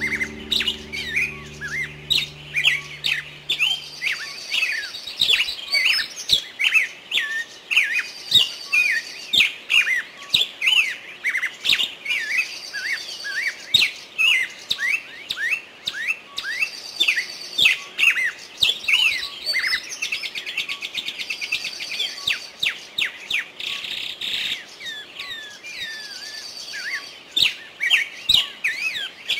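Many small birds chirping busily: quick high chirps several a second, with a thin higher trill returning about every four seconds. Soft background music fades out in the first few seconds.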